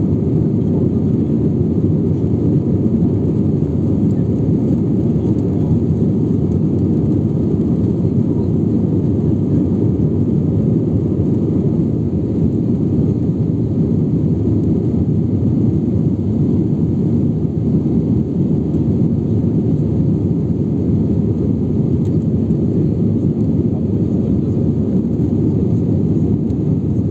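Airbus A320 cabin noise during the climb after takeoff: the engines and rushing air heard from inside the passenger cabin as a steady low rumble.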